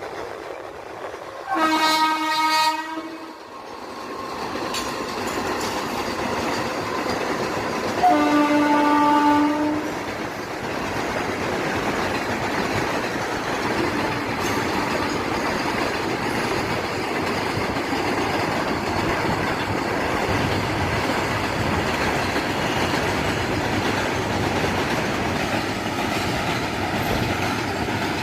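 A train horn sounds twice, each a blast of a second or more, then the steady rumble and clatter of a passing train.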